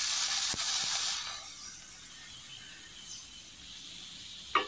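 Chopped onion and green chillies frying in oil in an aluminium kadai, with a loud sizzle as chopped tomato goes into the hot oil, dying down over a second or so to a steady lower sizzle. A couple of light knocks from the wooden spatula on the pan.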